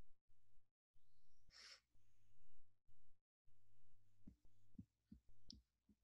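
Near silence: faint room tone with a short breath-like hiss about a second and a half in and a few soft, short clicks or thumps in the last two seconds.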